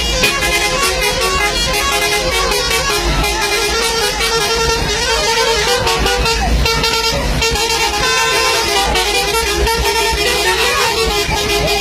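A bus's multi-tone musical horn (a 'telolet' horn) sounding over background music with a steady beat.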